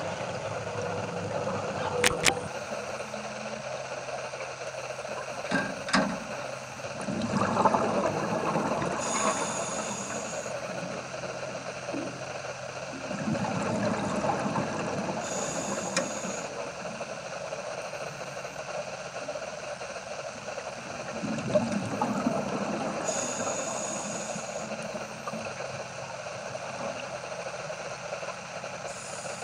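Underwater recording of a diver breathing through a scuba regulator: an inhaled hiss and then bubbles rushing out, in a slow cycle about every seven seconds, over a steady hum with a few sharp clicks.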